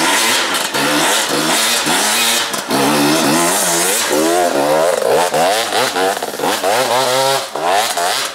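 Off-road dirt bike engines revving hard on a climb, their pitch rising and falling sharply with repeated throttle blips.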